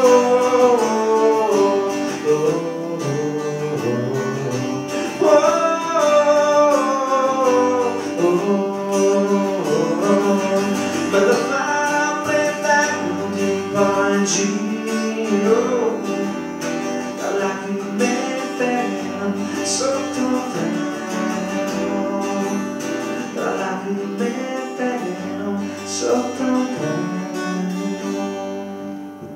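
Acoustic guitar strummed in a live solo song, with a man's voice singing over it in a few phrases, near the start, around five seconds in and around twelve seconds in.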